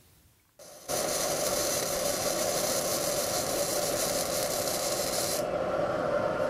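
Gasless flux-core arc welding with Lincoln flux-core wire at about 110 amps on 11-gauge steel: a steady, even arc noise that starts about a second in. A little past five seconds its high hiss drops away suddenly while a duller steady noise carries on.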